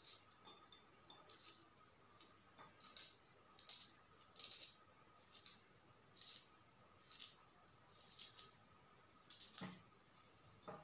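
A shallot being sliced thinly with a blade: faint, short crisp cuts, about one a second, some a little uneven.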